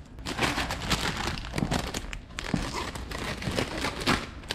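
Bare hands mixing baby spinach leaves into soft cheese in a glass bowl, tearing the leaves as they work. It makes a continuous run of small, irregular crackles.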